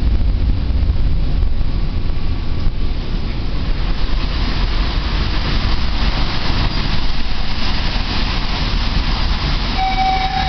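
Steady running noise of a tram heard from inside the car: a low rumble and rattle from the wheels on the rails as it slows. Near the end, a high squeal of several pitches begins.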